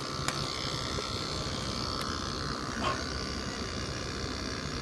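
Panasonic inverter air conditioner's outdoor unit running steadily, its compressor being run for a compression test and pumping the pressure above 500 while drawing about 2 amps. A couple of faint clicks come near the start.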